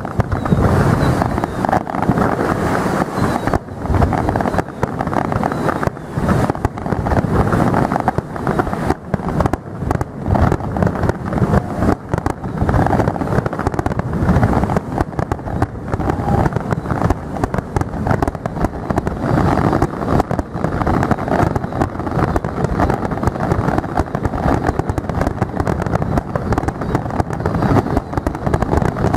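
Aerial firework shells bursting in quick succession, many booms and crackles running together into a continuous rumble.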